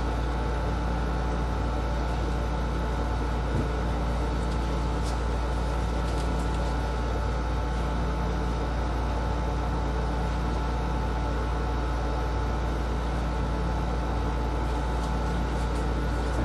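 Steady machine hum of a running appliance or fan, with a faint steady whine above it. A single soft tap comes about three and a half seconds in.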